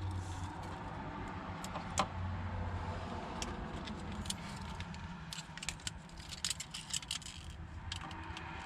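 Small hard objects being handled: a run of quick clicks and rattles, thickest from about five to seven and a half seconds in, over a steady low hum.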